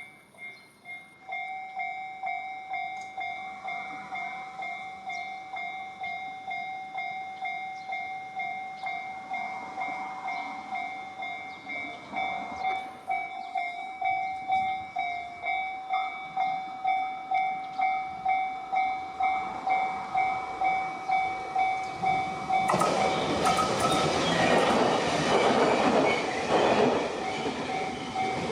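Japanese level-crossing alarm bells ringing in a steady, even ding, about one and a half to two strikes a second. About 22 seconds in, a train passes over the crossing, loud with wheel clatter on the rails, while the bells keep ringing.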